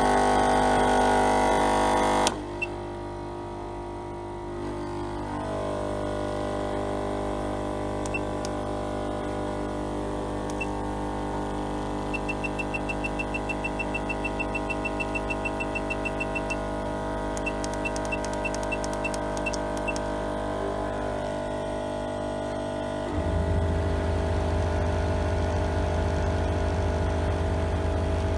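Hot air plastic welder station with a steady electric hum after a loud buzzing tone cuts off about two seconds in. Its control panel gives short same-pitch beeps, a fast run of about eight a second as the set temperature is stepped up, then a few slower ones. Near the end a louder low motor drone comes in as the hot air supply is turned up.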